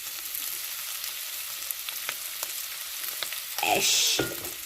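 Boiled beef tripe (matumbo) frying in hot oil in a pan: a steady sizzle with scattered pops. A louder surge of sizzling comes about three and a half seconds in.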